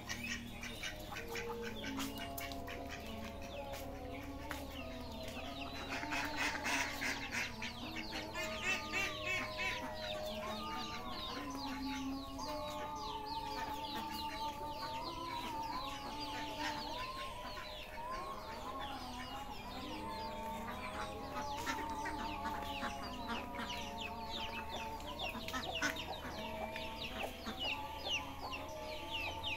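Chickens clucking and chicks cheeping, many short calls throughout, over background music with long held, wavering tones.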